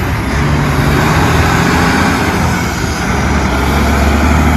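A motor running steadily with a low hum under a loud rushing hiss.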